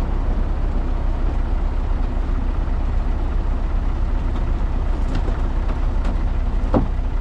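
Heavy vehicle engine running steadily with a deep rumble. About a second before the end comes a short squeak.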